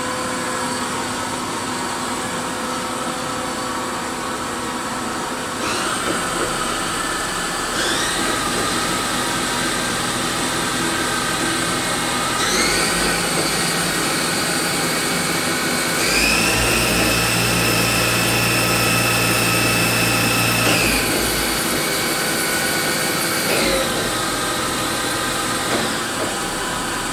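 Haas VF-6/50 CNC machining center's CAT-50 spindle running up to speed: a steady whine that climbs in pitch in about four steps as the spindle speed is raised, holds at its highest for several seconds, then steps back down near the end, over the machine's steady hum.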